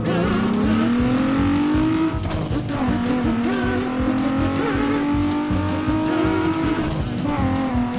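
Car engine sound revving up in pitch for about two seconds, then holding a steady drone, over a rhythmic backing beat.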